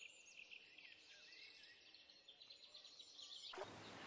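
Faint, high-pitched chirps and short twittering calls over quiet outdoor ambience. Near the end they cut off and give way to a steady hiss.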